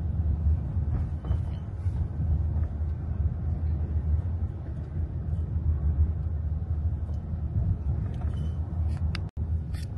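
Steady low road and engine rumble heard inside a moving car's cabin, with a couple of faint clicks and a split-second dropout near the end.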